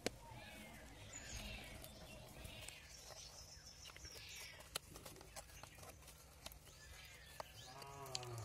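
Faint outdoor rural background: birds calling on and off, scattered light clicks, and a short animal call near the end.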